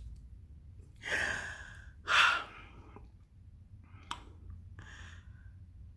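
A woman's excited, breathy exhales: two audible sighs about one and two seconds in, the second louder, then a small click and a softer puff of breath near the end.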